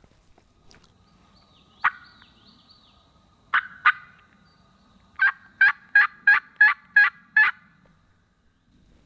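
Hen turkey yelps made on a mouth call: one yelp, then two, then a run of seven evenly spaced yelps.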